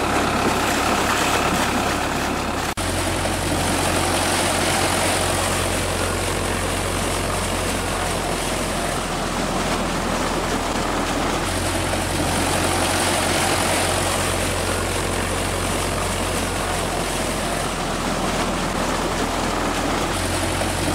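Belarus 510 tractor's diesel engine running steadily under load as it drives a 13-inch delivery pump through its shaft, with a constant low hum, over the rush of water gushing out of the pump's outlet pipe. The sound breaks off sharply about three seconds in and picks up again.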